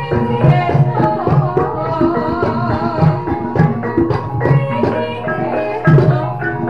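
Javanese gamelan dance music: a kendang hand drum beats steadily about twice a second under ringing metallophone tones, with a wavering melody line above.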